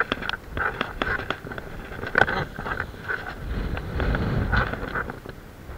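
Wind buffeting the microphone in a low rumble that swells after the midpoint, with scattered sharp clicks and knocks from handling.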